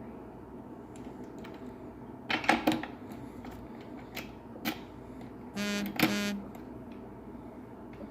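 Sharp clicks and light clatter of small metal cam-lock parts being handled and fitted, with a quick cluster of clicks about two and a half seconds in. Near the end comes a short buzz, under a second long, with a sharp click in the middle of it.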